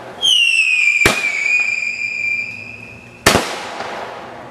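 A firework whistle screeching for about three seconds, dropping slightly in pitch and then holding steady. A sharp bang cuts in about a second in, and a louder bang comes as the whistle stops.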